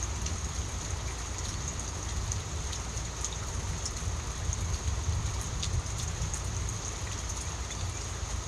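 Steady rain falling, with scattered drops ticking, over a continuous low rumble.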